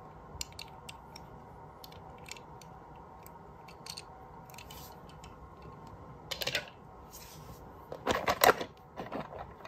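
Light clicks and taps of a toy car being handled, with a short cluster about six and a half seconds in and a louder flurry of clatter around eight seconds in.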